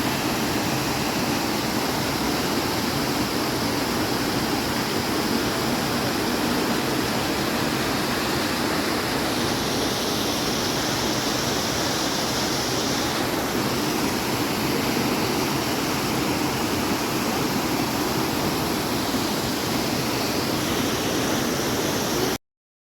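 Narmada river's Dudhdhara waterfall: a steady rush of falling water, cutting off abruptly near the end.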